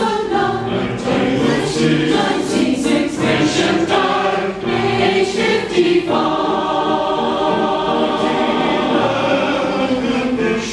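A choir singing, with sharp consonants marking the words for about the first six seconds, then a long held chord.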